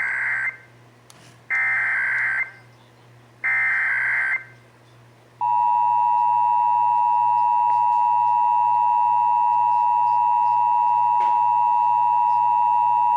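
Emergency Alert System signal: three short, shrill SAME digital header bursts, each about a second long, encoding the start of the alert. About five seconds in, the steady two-tone EAS attention signal (853 and 960 Hz together) begins and holds.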